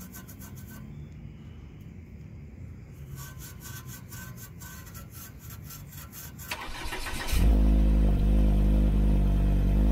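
Fingers tapping on a Volvo's chrome exhaust tip, two runs of rapid light metallic taps with a faint ring, testing whether the JB-Welded tip now holds tight. About seven seconds in the engine cranks briefly, catches and idles steadily, much louder, heard right at the tailpipe.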